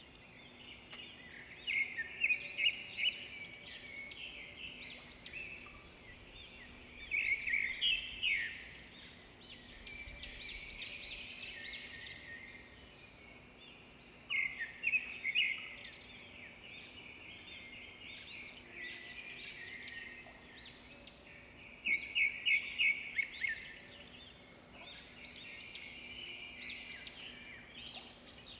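Small birds chirping and trilling in repeated bursts of quick, high chirps, with a faint steady hum underneath.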